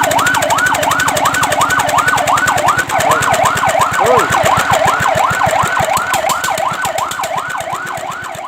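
Fire truck siren wailing in a fast yelp, the pitch sweeping rapidly up and down about three times a second; it gets quieter over the last couple of seconds.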